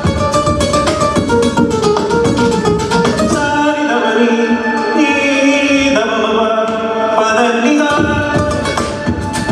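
Live Indian-classical fusion music in raga Puriya Dhanashree: acoustic guitar and a sung melody over a beatboxed, electronically processed beat. The low beat drops out briefly about four seconds in and again for about two seconds later on.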